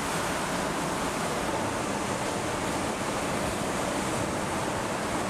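Steady rushing noise of a ship under way at sea, even and unbroken, with a faint steady tone in the background.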